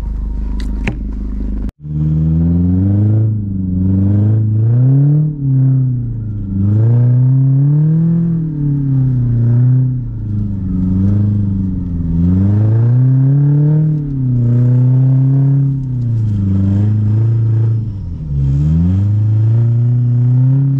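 Mercedes W203 C-Class Kompressor's supercharged four-cylinder engine, heard from inside the cabin, revving up and down over and over, the revs rising and falling every second or two as the car is drifted on ice.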